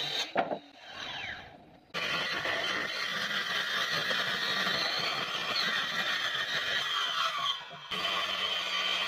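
Makita handheld circular saw running and cutting along a wooden slab, with a steady whine. The sound dies away briefly just after the start, comes back abruptly at about two seconds, and drops out for a moment near the end.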